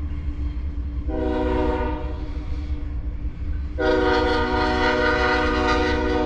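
Railway locomotive air horn sounding over a steady low rumble: a shorter blast about a second in, then a louder, long steady blast from near four seconds in.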